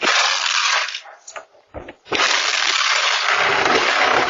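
Harsh, loud noise of a door being forced with tools, in two bursts: a short one at the start and a longer, steadier one from about two seconds in.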